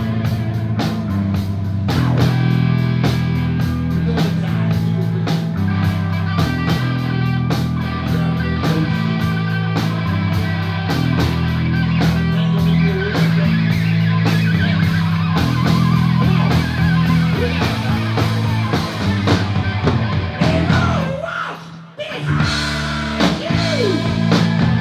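Rock band playing with electric guitar, bass and drum kit, with a steady beat. The music breaks off briefly about 21 seconds in, then the band comes back in.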